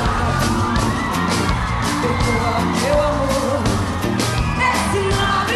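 Live axé band playing a percussion-driven beat, with a large crowd yelling and whooping over the music.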